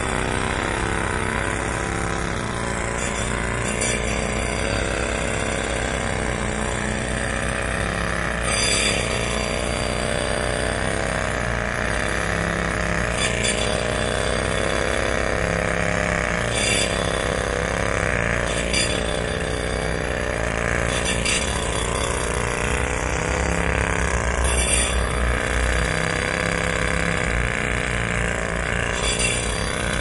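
Jackhammer hammering continuously in a fast, dense rattle, with brief harsher bursts every few seconds.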